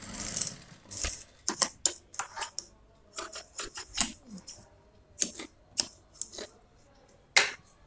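Large tailor's scissors snipping thread ends and trimming the edge of folded fabric at the sewing machine: a string of irregular sharp snips and clicks with soft fabric handling between them.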